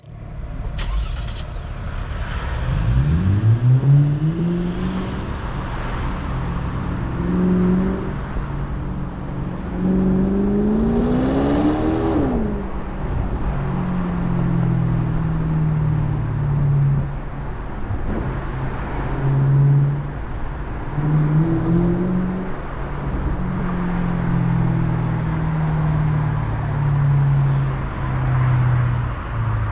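BMW 650i's naturally aspirated V8 pulling hard through the revs, its note climbing twice, the second climb cut off by a sudden drop in pitch at an upshift. After that it runs on at part throttle, its note rising and falling gently.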